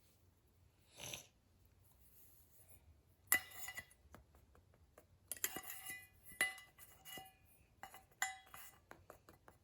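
Small hard objects clinking and clattering against one another and a container as they are handled and set in place: a soft knock about a second in, then a run of sharp clinks with brief ringing from a little past three seconds on.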